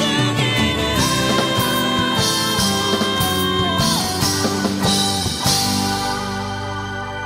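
Background music with guitar, growing quieter near the end.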